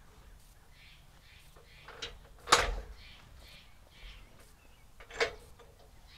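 Wooden blocks knocking against a metal sawmill track as they are wedged in under its feet: a light tap, then two sharp clunks about two and a half seconds apart, the second with a short ring.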